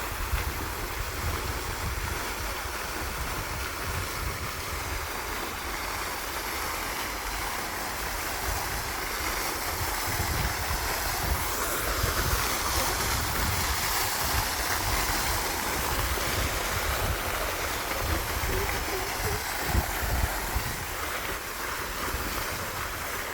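Steady rushing noise with a gusty low rumble of wind buffeting the microphone.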